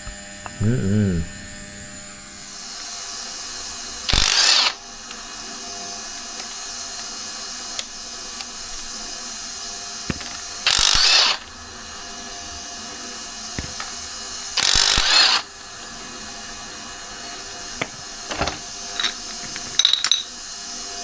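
Hand tools working on a motorcycle carburettor: ratchet clicking and small mechanism noises, with three short, loud bursts of noise at about four, eleven and fifteen seconds in.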